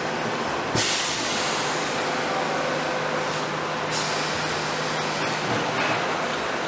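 A steady hissing noise over a low hum. The hiss turns brighter and louder about a second in, then drops back about three seconds later.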